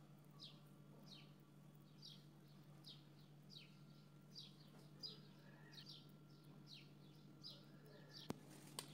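Faint bird chirping: one short falling chirp repeated steadily, about three every two seconds, over a low steady hum. Two sharp clicks near the end.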